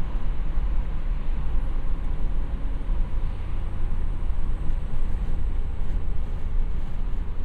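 Car running steadily, a constant low rumble that neither rises nor falls in pitch.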